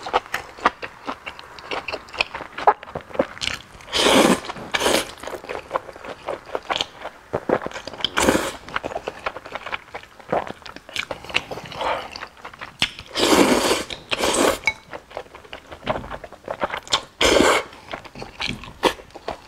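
A person eating noodles close to the microphone: wet chewing and lip-smacking clicks throughout, broken by about six loud slurps of noodles, the longest a little past the middle.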